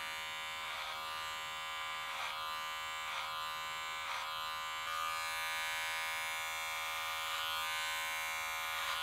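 Cordless electric hair clippers buzzing steadily while cutting hair at the side of the head. The buzz shifts briefly about once a second with each pass through the hair, and grows a little louder about five seconds in.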